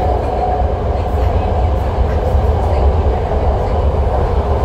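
Cabin noise inside a 1972 Rohr-built BART legacy A car running between stations: a steady deep rumble with a constant mid-pitched hum over it.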